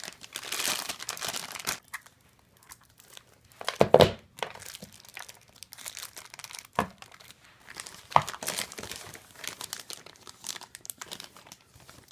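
Packaging being handled: crinkling and rustling, with a loud knock or clatter about four seconds in and a couple of sharp clicks later.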